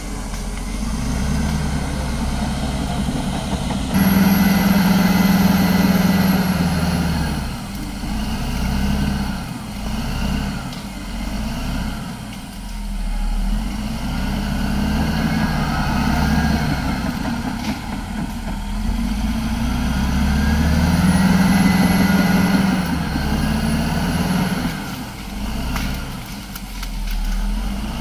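Caterpillar D7R crawler dozer's diesel engine working under load as it pushes dirt. It swells louder suddenly about four seconds in and again about three quarters of the way through, with high squeals rising and falling in pitch and occasional metallic clanks mixed in.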